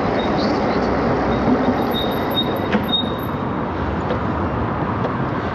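Wind rushing over a handlebar-mounted camera's microphone and tyre noise from an electric bike riding along a city street, a steady rumbling hiss.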